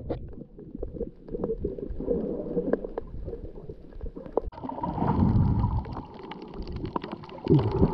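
Water heard from a submerged camera: muffled gurgling and sloshing, with low rumbles and small knocks as the camera moves through the water. About halfway in, a steady higher tone joins and carries on.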